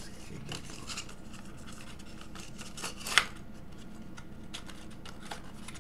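Clear plastic blister pack of vape coils being handled, giving scattered light clicks and crinkles, with one sharp, loud click a little past the middle.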